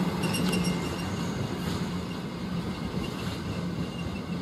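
Diesel freight train running past on the rails, its low engine drone and wagon noise steadily fading as it draws away.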